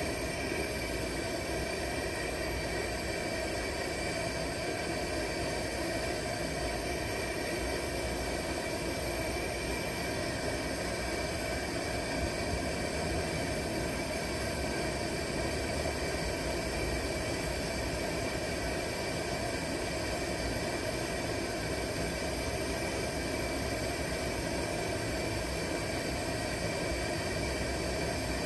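Vintage 1940s Preway P4521 two-burner camp stove's pressurized burner running with a steady hiss under a pot of water being brought to the boil.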